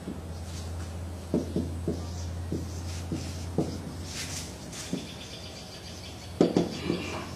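Scattered light knocks and clicks at irregular intervals over a steady low electrical hum, with a short cluster of louder clicks and a brief squeak about six and a half seconds in.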